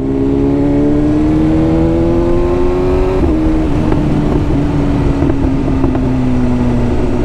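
Sport motorcycle engine heard from onboard while riding, its pitch climbing slowly for about three seconds, a brief break, then slowly falling as the bike eases off. Wind rushes over the microphone throughout.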